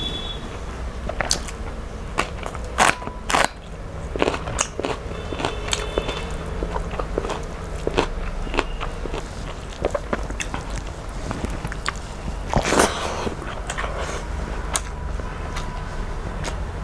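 Close-miked mukbang eating sounds: a woman chewing mouthfuls of biryani rice by hand, with many short wet mouth clicks and smacks. The loudest bursts come about three seconds in and again near thirteen seconds, as she takes a handful into her mouth.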